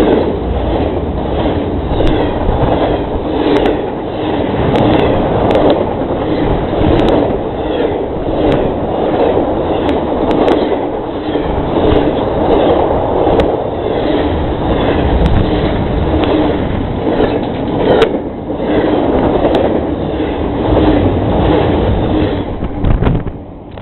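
CSX intermodal freight train cars rolling past close by at speed: a steady rumble and rattle of wheels on the rails with scattered sharp clicks, one louder click about three-quarters of the way through. The sound drops away near the end.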